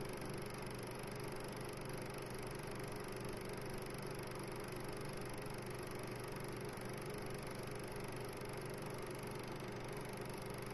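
Steady mechanical hum over an even hiss, like a machine or engine running, unchanging throughout.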